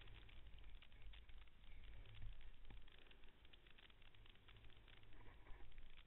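Faint dense crackle of snow under a snowkiter sliding across the snow, over a low, uneven rumble of wind on the microphone.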